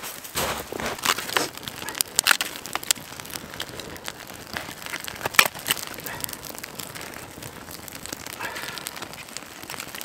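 Dry kindling crinkling and snapping as a campfire is started: irregular rustles with sharp cracks, the loudest about halfway through.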